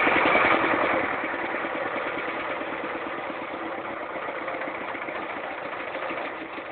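Lister SR1 single-cylinder air-cooled diesel engine on a generator set running steadily, its sound growing gradually quieter.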